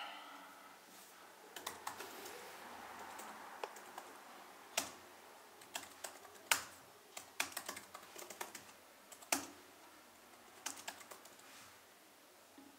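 Keystrokes on a laptop keyboard, tapped in irregular bursts as a file name is typed, with a few louder key hits. The typing stops about a second before the end.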